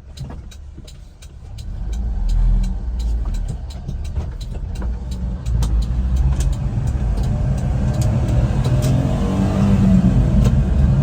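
1999 Honda Acty kei truck's small three-cylinder engine pulling away and accelerating. It grows louder from about two seconds in and keeps climbing, with a quick, regular run of light ticks.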